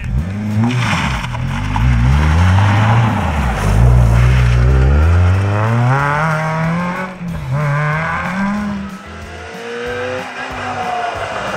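Ford Fiesta ST150 rally car's four-cylinder engine driven hard through corners, its pitch climbing under acceleration and dropping sharply at each gear change or lift, several times over.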